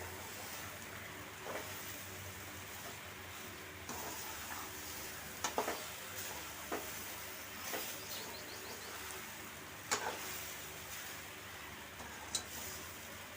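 Soaked puffed rice sizzling in a hot pan of tempering while it is stirred with a ladle, with a few short scrapes and clacks of the ladle against the pan. The sizzle is the soaking water cooking off.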